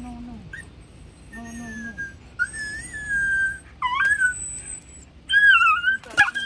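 Stray puppy whining and crying in a series of high, wavering cries, the loudest a little after five seconds in: the distress of a puppy stuck in thick mud and being pulled out. A short noisy scuffle just after six seconds.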